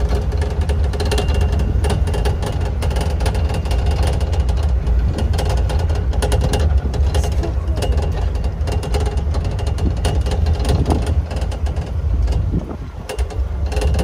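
Vehicle on the move: a loud, steady low rumble with frequent rattles and knocks.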